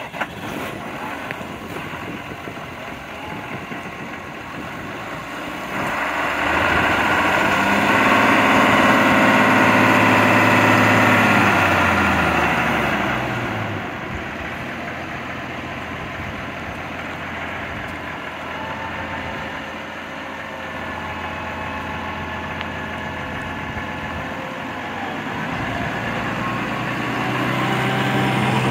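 2014 Case IH Puma 130 tractor's six-cylinder diesel running as the tractor is driven. The engine note rises about six seconds in, stays up for several seconds, eases back down, runs steadily, and rises again near the end.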